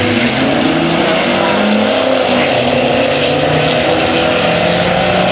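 Drag-race launch: a 1966 Chevy Nova's 461-cubic-inch big-block V8 and a second car accelerating hard away from the start line side by side, engine notes climbing and shifting as they pull away.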